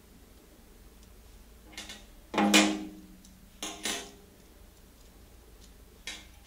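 Small metal bicycle derailleur parts and a hex key knocking and clinking as they are handled and set on a metal workbench: a few short knocks, the loudest about two and a half seconds in with a brief ring, and a sharp click near the end.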